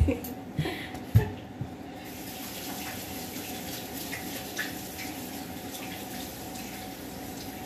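Water running steadily from a tap into a sink, starting about two seconds in. Before it, a few knocks, the loudest about a second in.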